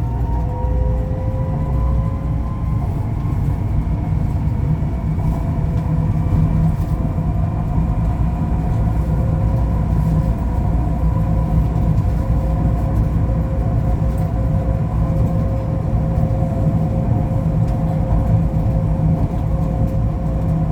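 Ui-Sinseol light-rail train running between stations, heard from inside the car: a steady low rumble with an electric motor whine that rises in pitch over the first few seconds, then holds steady.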